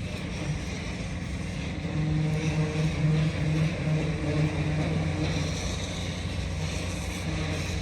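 An engine running steadily with a low hum, growing louder about two seconds in and easing off again around five seconds.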